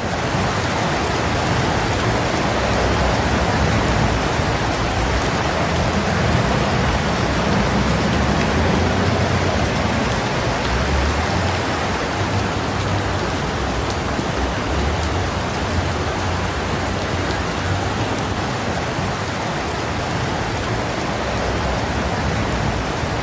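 Steady rushing noise of flash floodwater flowing through streets, with a low rumble underneath.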